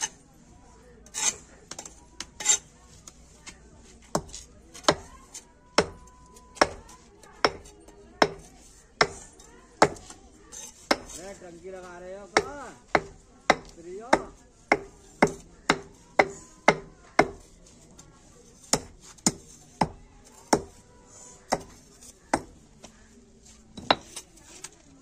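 Repeated sharp knocks of hand-held pieces of concrete paving block and stone striking other block fragments, about one knock a second at an uneven pace, sometimes two in quick succession.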